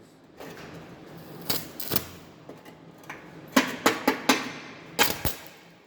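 Stick welding electrode scratched on steel to strike the arc for tack welds, giving short, irregular crackling bursts, densest about halfway through.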